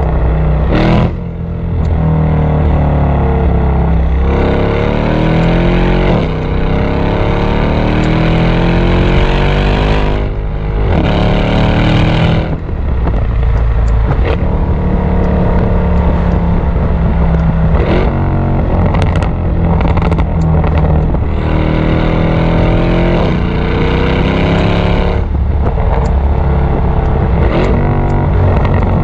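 Exhaust of a tuned, catless Mercedes-AMG E63 twin-turbo 5.5-litre V8 under hard driving. The revs climb in long rising pulls through second and third gear, broken by gear changes and falls in pitch. Sharp pops and crackles come on the overrun when the throttle lifts.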